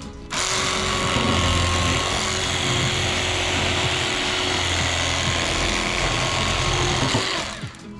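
Water spraying hard from a hose, washing fish scraps off a cleaning board: a steady hiss that starts just after the opening and cuts off about seven seconds later.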